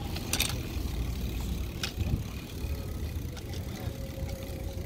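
Uneven low rumble of a bicycle ride: wind buffeting a phone microphone and tyres rolling on pavement, with a couple of sharp clicks in the first two seconds.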